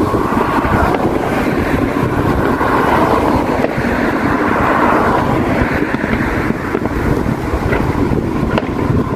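Wind buffeting the microphone: steady, gusty rumble that covers everything else.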